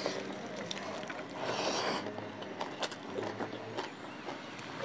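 Road traffic noise from outside, with a hiss that swells and fades between one and two seconds in. Small wet clicks of rice being mixed by hand on a plate and chewed sound throughout.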